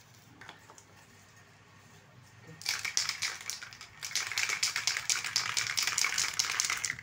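Aerosol spray-paint can being shaken, its mixing ball rattling rapidly inside, starting about two and a half seconds in and keeping on.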